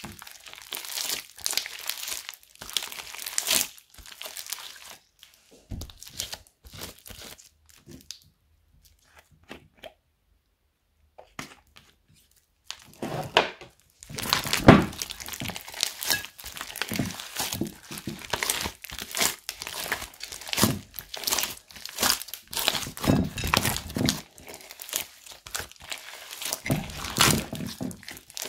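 Hands squeezing and stretching slime mixed with kinetic sand: a run of sticky crackles, squelches and small pops. The sound almost stops for a few seconds about eight seconds in, then the crackling comes back denser from about fourteen seconds.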